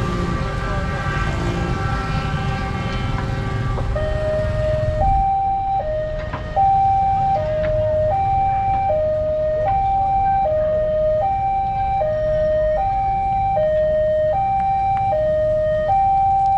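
Railway level-crossing warning siren alternating two electronic tones, E-flat 5 and G5, each held a little under a second, warning that a train is coming. For the first five seconds a loud rumble with steady tones covers it, then cuts off abruptly and leaves the siren clear.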